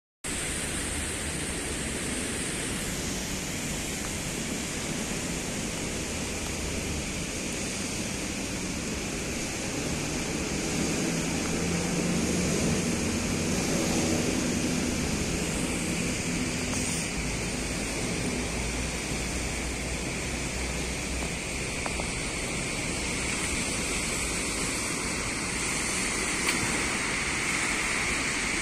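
Steady rain falling, an even hiss. A low hum swells and fades around the middle.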